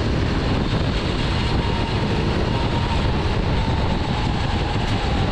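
Onboard sound of a rental racing kart at speed down a straight: its engine running steadily under heavy wind and road noise, with a faint whine that sinks slightly in pitch toward the end. Muffled, as heard through a GoPro inside its waterproof housing.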